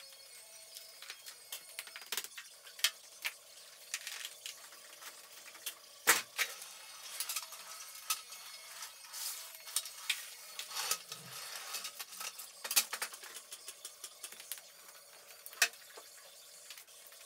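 Irregular clatter and clinks of small hard objects being handled, with a louder knock about six seconds in.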